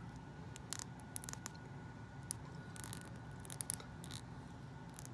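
Faint small clicks and scrapes of hard plastic being handled: tiny doll shoes being pushed and twisted onto a mini doll's feet, over a low steady hum.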